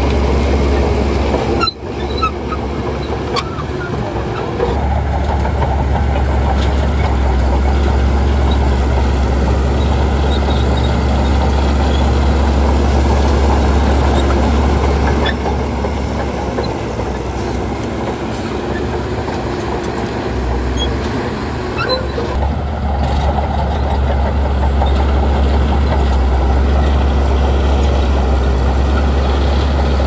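Heavy diesel engine of earthmoving machinery running steadily, with a few light clanks and squeaks.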